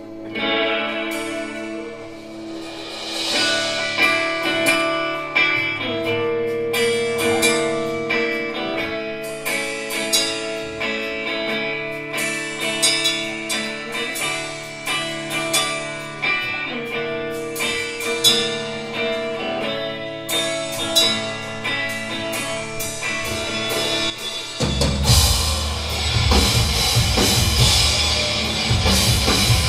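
Live hardcore punk band: an electric guitar plays a repeating melodic figure of ringing notes on its own, then about twenty-four seconds in the drums and bass come in and the full band plays together.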